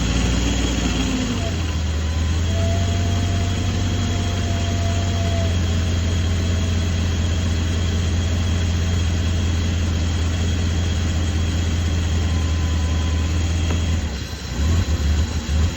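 BMW E32's engine idling roughly, a steady low drone. About fourteen seconds in it turns to an uneven, pulsing low rumble.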